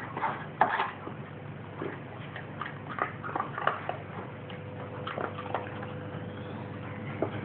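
A dog moving about in play, making short scuffling and snuffling sounds, with one sharper, louder sound about half a second in, over a faint steady hum.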